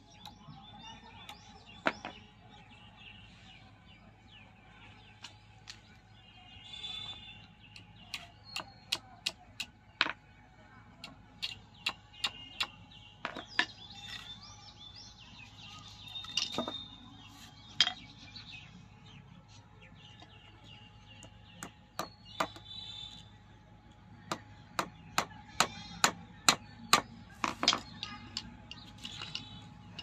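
Steel hammer tapping nails into a freshly cut wooden branch: many sharp, light strikes, some single and some in quick runs of taps, with birds chirping now and then.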